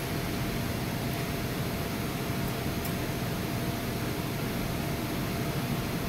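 Panasonic microwave oven running under load with a cup of water inside: a steady hum of its fan and transformer. The magnetron is powered and heating, with the oven drawing about 10 to 11 amps.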